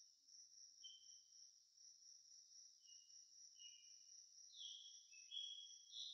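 Faint cricket ambience: a steady high trill throughout, with short, slightly lower chirps overlapping it that come more often and louder in the last second and a half.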